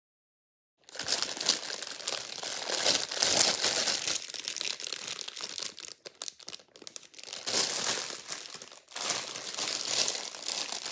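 Clear plastic bag of mini sweet peppers crinkling as it is handled close up. It starts about a second in and comes in several spells with short breaks.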